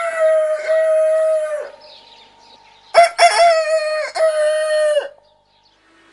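A rooster crowing twice, about three seconds apart. Each crow opens with a few short notes, holds a long steady note and drops away at the end.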